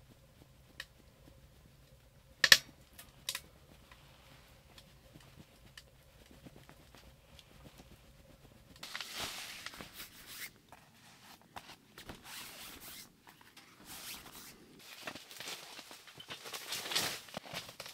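A few sharp clicks in the quiet, the loudest about two and a half seconds in. From about halfway on, irregular rustling and shuffling of someone moving about and handling the fabric of a camp cot.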